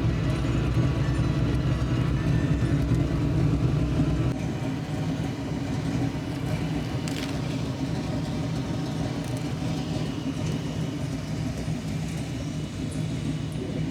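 Car driving, a steady rumble of engine and road noise; the deep rumble eases about four seconds in.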